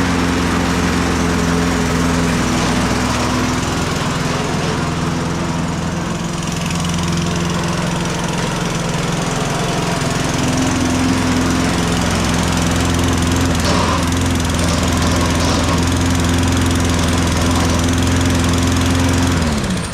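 Tecumseh engine of a Toro 22-inch Recycler push mower, just started, coming up to speed and then running steadily. Near the end it is shut off and its note falls away.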